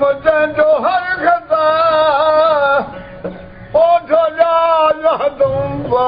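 Old man singing a folk song solo in long, wavering held notes, with a short break about three seconds in, accompanied by his long-necked lute.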